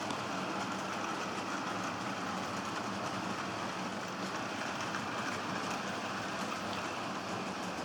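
Model train running on its track: a steady rolling and running noise with a few faint clicks.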